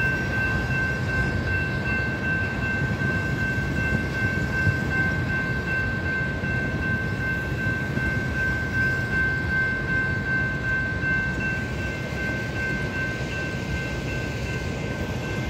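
Freight train of boxcars and tank cars rolling steadily past, a constant low rumble of wheels on rail, with a grade-crossing warning bell ringing as a steady high tone over it.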